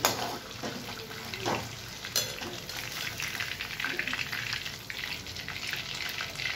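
Chicken pieces sizzling and crackling in hot oil in a kadai as they are lifted and turned with a steel slotted spoon to drain. The spoon clinks sharply against the pan at the start and again about two seconds in.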